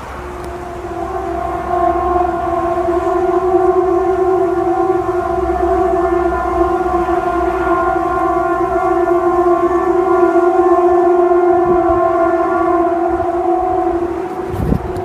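Loud, steady horn-like drone at one unchanging pitch, blaring for about fourteen seconds before cutting off, followed by a brief low thump: one of the unexplained 'strange sounds in the sky'.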